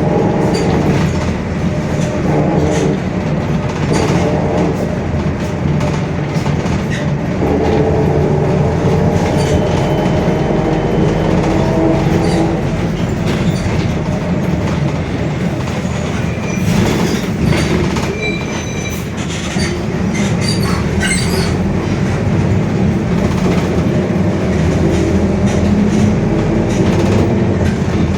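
Mercedes-Benz OF-1721 Bluetec 5 bus under way: the diesel engine runs with a steady drone while the differential growls with a whine of several pitched tones that fades out about twelve seconds in. Clicks and rattles come through in the middle.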